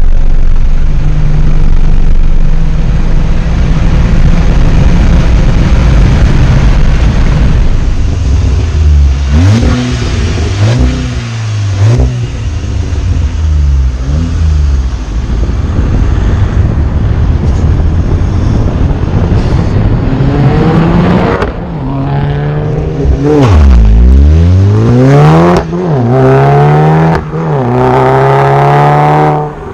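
Volkswagen turbocharged four-cylinder car engine revving and accelerating, its pitch climbing and dropping again and again. Near the end the pitch falls deep and climbs back, then comes long climbs, with a few sharp cracks in between.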